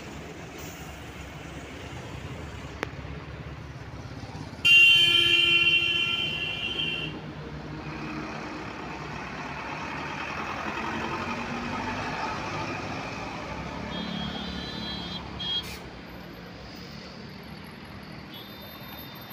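Road traffic with vehicle engines running. A loud vehicle horn blares about a quarter of the way in for roughly two seconds, and shorter, fainter horn toots come later.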